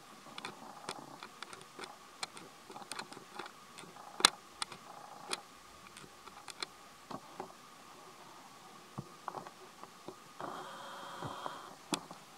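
Irregular sharp clicks and taps over a faint, steady high drone. About ten and a half seconds in, a short buzzing sound lasts about a second.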